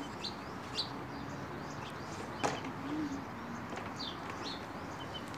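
Small birds chirping in short high notes several times, and a dove cooing low about three seconds in, over a steady background hiss. A single sharp knock about two and a half seconds in as the wooden folding table is handled.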